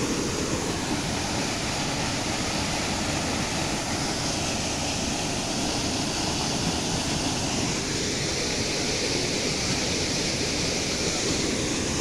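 Small waterfall pouring into a rock pool, a steady, unbroken rush of falling water.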